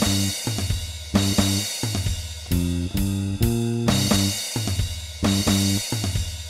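Squier Bronco electric bass with a Gretsch Filtertron bridge pickup and roundwound strings, played through a Phil Jones PE5 preamp and a miked Hartke HD50 bass amp, laying down a repeating bass line over a drum kit with regular cymbal crashes. In the middle the bass plays a short run of higher notes.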